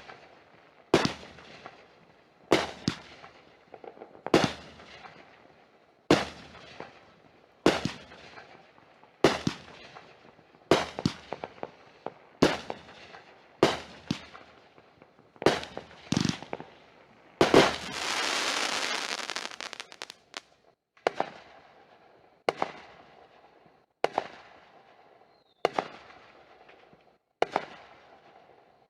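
Consumer aerial fireworks going off: a steady series of sharp booms about every one and a half seconds, each trailing off briefly. A little past halfway, one louder boom is followed by a hissing crackle lasting a couple of seconds.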